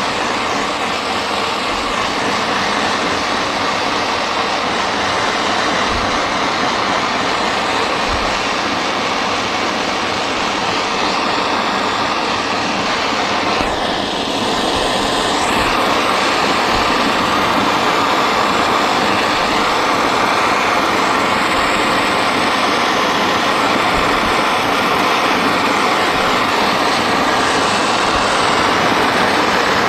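Cylinder-mounted gas torch burning with a steady hiss as its blue flame heats the seam of a sheet-metal fuel tank for soft soldering. The sound dips briefly about 14 seconds in, then runs slightly louder.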